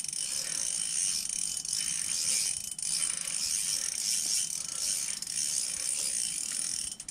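A Shimano Stratic 2500 spinning reel being cranked steadily with a mechanical whirring as a hooked fish is reeled up through the ice.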